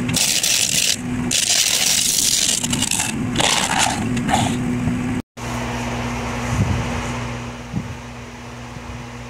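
Turning gouge cutting the face of a spalted gumbo limbo bowl spinning on a wood lathe: a loud hiss of wood being shaved, broken by brief lifts of the tool, for about five seconds. After a sudden cut, a steady electric hum with a few light knocks.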